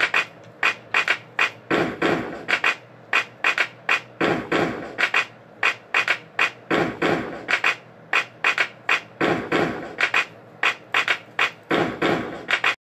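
Outro music with a steady drum beat that cuts off suddenly near the end.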